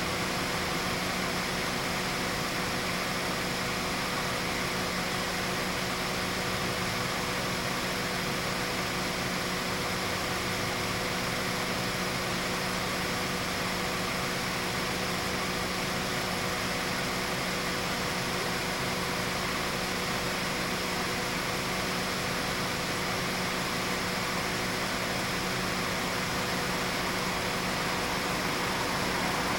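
A steady mechanical hum with a constant low drone that does not change.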